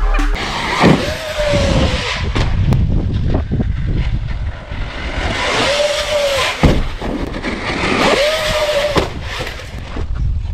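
Radio-controlled car racing about: its electric motor gives a whine that rises and falls in pitch three times as it speeds up and slows, over a steady rough rushing noise.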